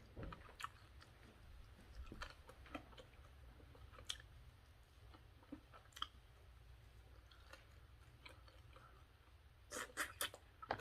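Faint chewing and wet mouth clicks from someone eating, with a quick run of louder clicks near the end.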